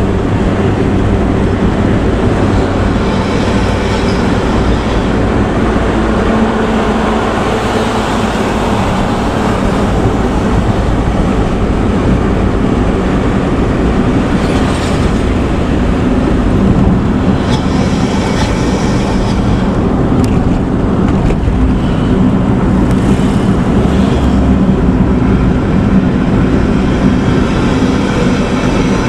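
Front-engined intercity bus fitted with a 'ngorok' (snoring) growling exhaust, running steadily: a deep, continuous engine and exhaust drone.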